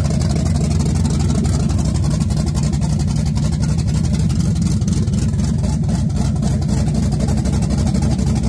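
Carbureted Blueprint 383 stroker small-block Chevy V8 idling steadily, with an even, deep exhaust note and no revving.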